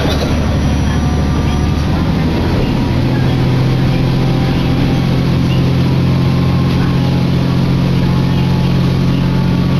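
Diesel railcar running, heard from inside the carriage: a steady engine drone under track and running noise. The engine note steps up to a higher, steadier pitch about two and a half seconds in.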